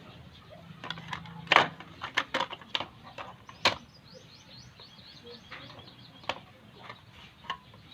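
Sharp clicks and knocks of small hard objects being handled on a workbench, loudest about a second and a half in and just before four seconds. A bird twitters quickly in the background around the middle.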